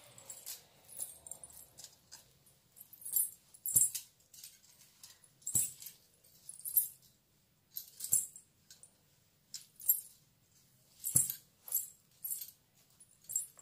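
Silver toe rings and anklets with small ghungroo bells jingling with each step in rubber flip-flops, about one shimmering jangle a second. A few steps land with a soft dull thud.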